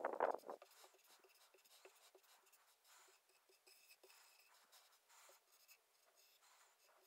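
Dry-wipe marker writing on a small whiteboard: faint, scratchy strokes with light squeaks. There is a louder short bump right at the start.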